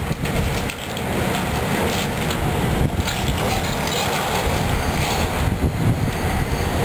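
Building demolition under way: heavy machinery runs with a steady low rumble while the structure is torn down, with continuous crunching and clattering of debris.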